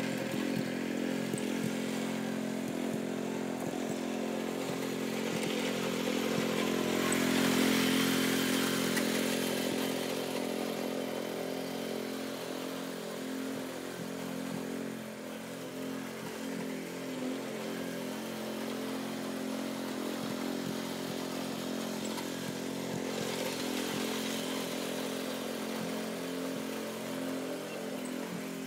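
Small riding garden tractor's engine running at a steady speed as it drives across the lawn spreading seed, swelling louder about a quarter of the way in.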